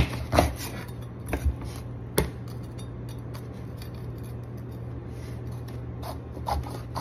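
Kitchen knife cutting into a bitter melon (ampalaya) on a plastic cutting board: a few sharp taps and scrapes in the first couple of seconds, the loudest about two seconds in, then quieter slicing with a couple more ticks near the end. A steady low hum underneath.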